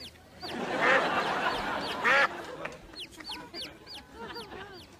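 A domestic duck quacking, then a baby chick peeping in a quick run of short, high, falling peeps.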